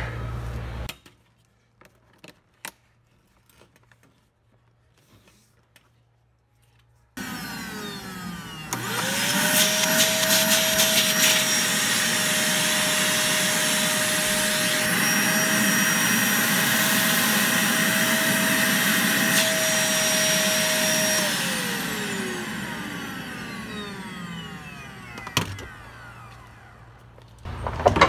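Electrolux Easybox Plus canister vacuum cleaner switched on: after several seconds of near silence its motor spins up quickly to a steady, loud whine and runs for about twelve seconds. It is then switched off and winds down with a falling pitch. A single click follows a few seconds later.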